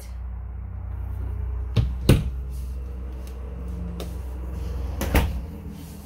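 Clacks of a cabinet door in an RV bathroom being handled and shut: two sharp knocks about two seconds in, a softer tick or two, and another pair of knocks near the end, over a steady low rumble.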